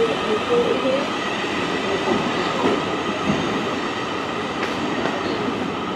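Two coupled Class 444 Desiro electric multiple units pulling out of the station: a steady electric whine from the traction equipment over the noise of wheels on track.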